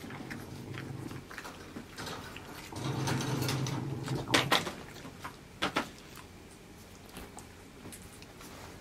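A Kai Ken dog growling low: a rumble that swells for about a second and a half near the middle, followed by a few sharp clicks.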